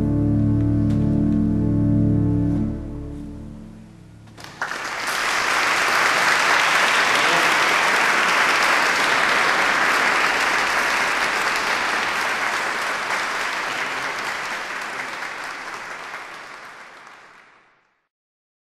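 Pipe organ holding a final sustained chord that is released about three seconds in and dies away in the hall's reverberation. About a second later the audience breaks into applause, which fades out near the end.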